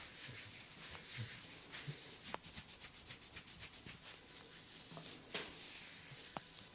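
Fingers scratching and rubbing through hair on a person's scalp during a head massage, a faint dry hiss. Partway through comes a quick, even run of about a dozen crisp scratching strokes, with a few single clicks around it.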